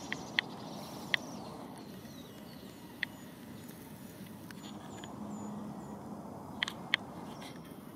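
Steady outdoor background noise with a handful of short, sharp clicks: two at the start, single ones about one and three seconds in, and two close together near the end.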